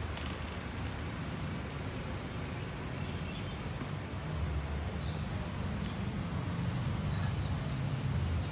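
Outdoor background noise: a steady low rumble with a thin, steady high-pitched whine running through it, and a few faint clicks.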